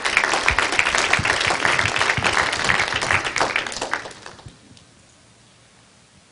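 Audience applauding, a dense patter of clapping that dies away about four seconds in.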